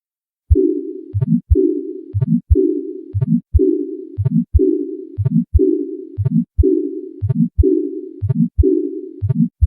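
Heart sounds at about one beat a second, starting half a second in. Each beat opens with a sharp low thump, followed by a long, steady murmur that runs up to a short second sound.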